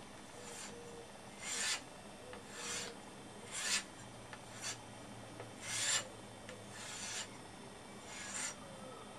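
Steel knife blade being stropped on a leather belt loaded with chromium oxide compound: about seven quiet swishing strokes, roughly one a second. This is the last honing step, which pushes the fine edge back into alignment.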